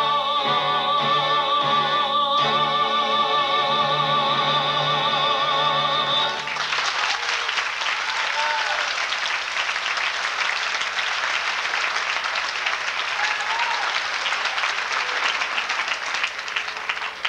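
A man's and a woman's voice holding the closing note of a musical-theatre duet, with wide vibrato. About six seconds in the note ends and the audience breaks into steady applause, which begins to thin near the end.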